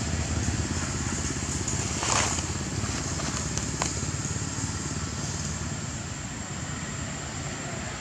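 Steady low rumble of distant motor traffic, with a short rustling swish about two seconds in and a single sharp click near four seconds.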